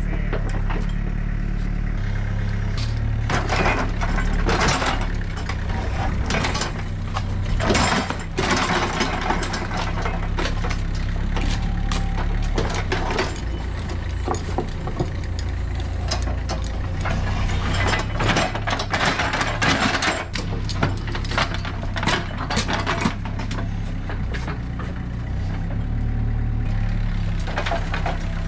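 John Deere mini excavator's diesel engine running steadily, with irregular scraping and clunking of digging through rocky dirt by bucket and shovel.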